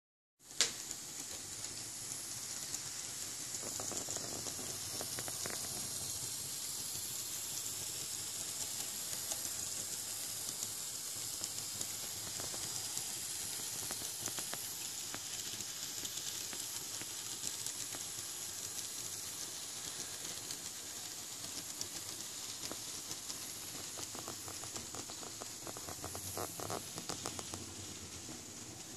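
N scale model train running on its track: a steady high hiss from the small motor and wheels, with light clicking from the rails a few seconds in and again near the end.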